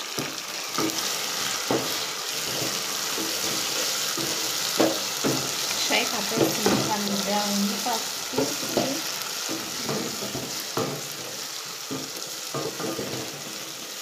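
Meat and onions sizzling in a hot pot for pilau, with a spoon stirring and knocking against the pot every so often.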